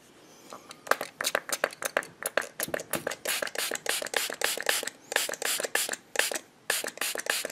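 Hand pump spray bottle of antiseptic pet spray being pumped over and over, giving short spritzes at several a second, starting about a second in.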